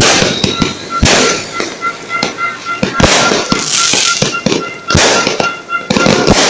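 Aerial fireworks going off in quick succession: loud sharp bangs every second or two, with dense crackling between them.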